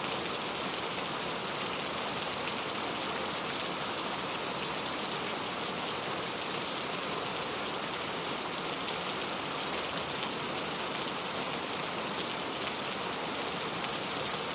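Steady rain falling: an even hiss full of fine, quick drop ticks that does not change in level.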